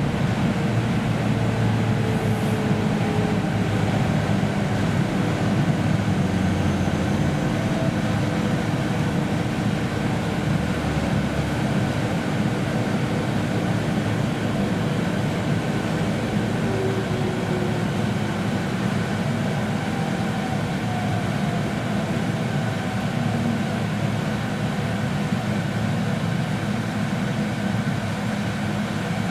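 Running noise inside a JR Central 313 series electric multiple unit's motor car: a steady rumble of wheels on rail and traction motors, with faint motor tones slowly falling in pitch as the train slows along a station platform.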